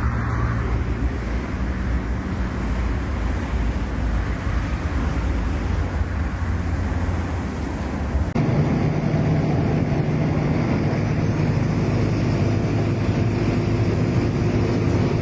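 Steady engine drone, with an abrupt cut about eight seconds in to a second steady engine sound, higher-pitched.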